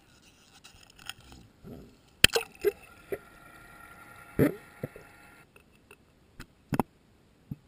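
Knocks and clunks on a deep-water camera housing as it goes over a boat's side into the sea, with water sloshing and gurgling. The sound turns muffled once the housing is under, broken by a few more knocks.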